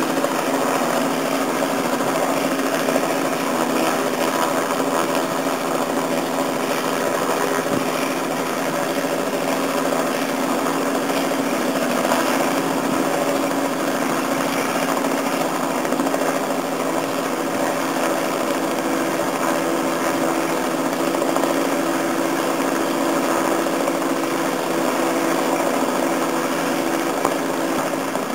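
Robinson R44 helicopter hovering, its six-cylinder piston engine and rotor making a steady drone with a held hum.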